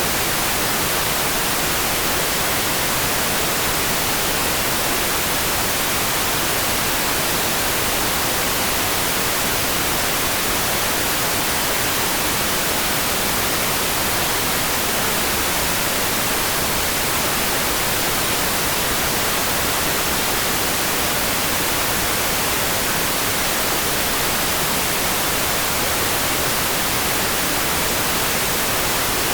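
Steady rain, heard as an even, unbroken hiss strongest in the treble, with no single drops, drips or thunder standing out.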